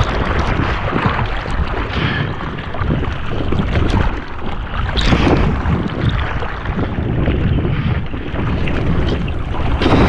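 Kiteboard riding over choppy water: water rushing and slapping against the board, with a few sharper splashes, and wind buffeting the microphone.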